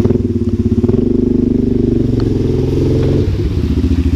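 Yamaha Grizzly 700 ATV's single-cylinder engine running in the stream crossing, held at higher revs for a couple of seconds, then dropping back about three seconds in to a slower throb.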